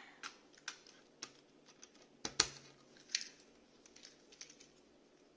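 Light, irregular clicks and taps of the plastic parts of a Beyblade launcher being handled and fitted together, the loudest click about halfway through.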